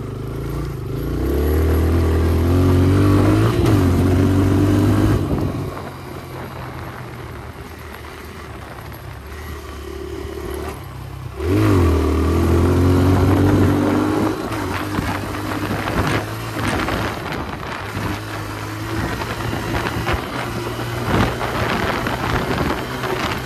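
Kawasaki KLX140 dirt bike's single-cylinder four-stroke engine under way, revving up hard twice, near the start and again about eleven seconds in, each time easing back to quieter, lower running. Scattered clicks through the second half.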